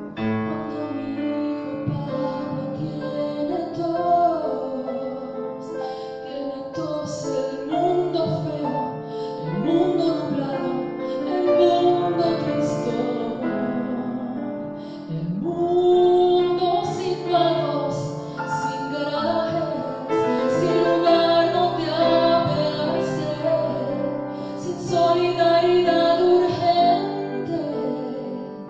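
A woman singing a song set to a Spanish poem, with piano accompaniment.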